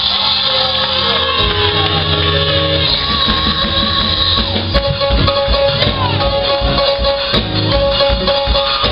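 Live gospel praise music played by a church band, with drums and tambourine, and voices singing and shouting over it.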